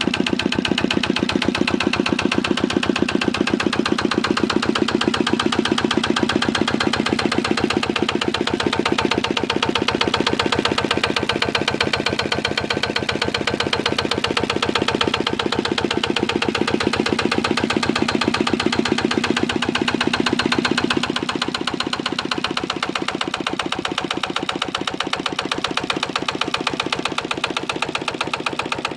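1965 Lister LD1 single-cylinder diesel engine running steadily, with an even, rapid knock of firing strokes. It runs on a new aftermarket fuel tank and a reconditioned injector. It sounds a little quieter from about two-thirds of the way through.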